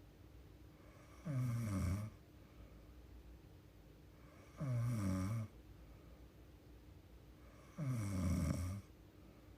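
A young woman snoring in her sleep: three snores about three seconds apart, each about a second long and falling in pitch.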